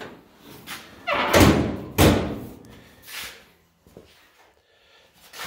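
Steel hood of an Oldsmobile Vista Cruiser wagon being closed: two heavy metal thuds about a second apart as it drops and slams shut, the first one a little over a second in.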